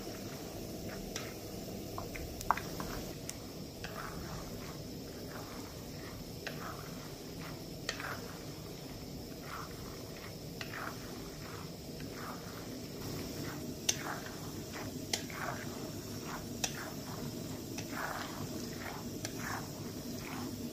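Peanuts frying in hot oil in a pan while being stirred constantly: a steady sizzle with irregular clicks and scrapes of the stirring against the pan. The peanuts are close to done.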